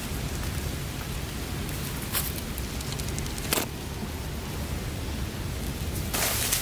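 Steady background hiss with two faint ticks, one a little past two seconds and one about three and a half seconds in. Louder rustling starts near the end.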